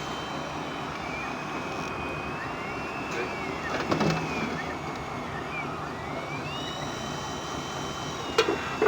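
Small electric motors of radio-controlled construction models whining, their pitch rising and falling again and again as they speed up and slow down, over a steady background hubbub. There is a short knock about four seconds in and another sharp knock near the end.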